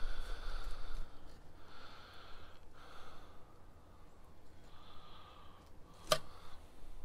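Fillet knife sawing through a black crappie on a glass cutting board: a series of short scraping strokes, each about a second long, with a sharp click about six seconds in.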